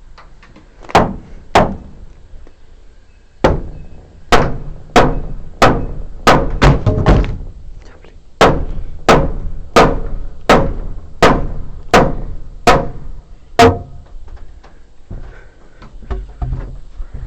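Hand hammer striking the wooden framing timber: two blows, then two long runs of steady, evenly spaced strikes, roughly three every two seconds, each with a short ring.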